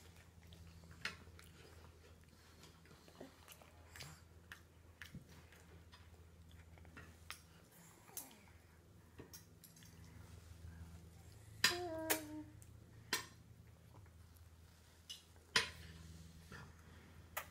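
A baby's spoon clinking and scraping now and then against a metal-lined feeding bowl, in scattered sharp clicks, with a cluster of louder knocks about twelve seconds in. A short vocal sound from the baby comes with that cluster, over a steady low hum.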